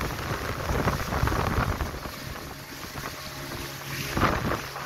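A boat's engine runs steadily under the rush of water along the hull and wind on the microphone, with louder splashes about a second in and again about four seconds in.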